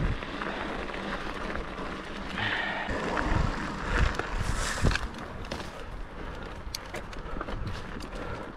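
BH Lynx Race mountain bike rolling over a rough trail: tyres on dirt and rock, with irregular knocks and rattles from the bike, loudest around the middle, and a few sharp clicks near the end.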